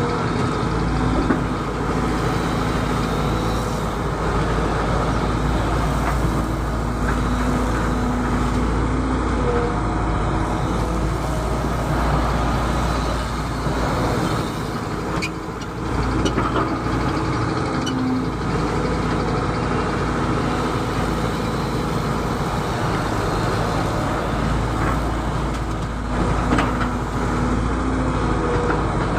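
Excavator's diesel engine running steadily under working load, with the sound easing briefly about halfway through and again near the end, and a few light knocks.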